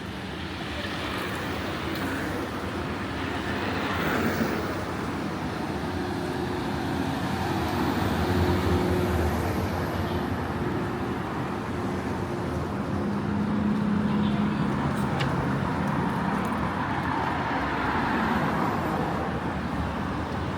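City street traffic: a steady wash of road noise from cars, swelling several times as vehicles pass close by.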